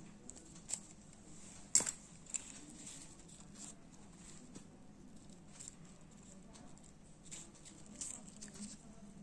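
Plastic hair clips with foam roses being handled: scattered light clicks and rustles, with one sharper click about two seconds in.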